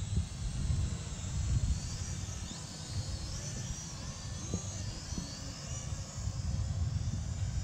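Small DEERC D10 quadcopter's propellers whining high in pitch, the whine rising and falling as the drone flies, under a low rumble of wind buffeting the microphone.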